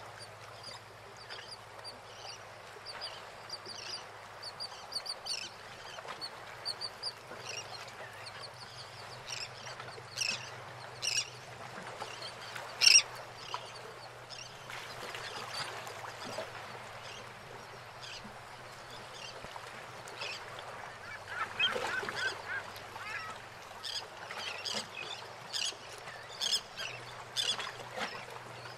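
Birds calling in many short, repeated notes over a steady wash of harbour water around moored boats, with a few louder sharp calls, the loudest about 13 seconds in.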